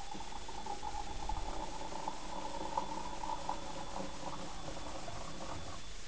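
Kombucha trickling in a thin stream from a glass jar's spigot into a cup, a steady pouring sound that stops shortly before the end.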